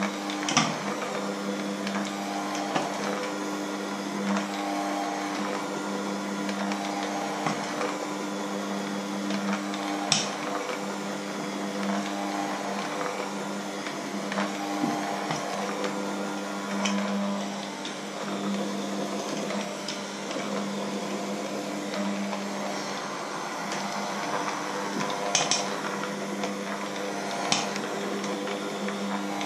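Bosch electric hand mixer running steadily with its spiral dough hooks working a thick mixture in a stainless steel bowl, a constant motor hum. A few sharp knocks break through now and then.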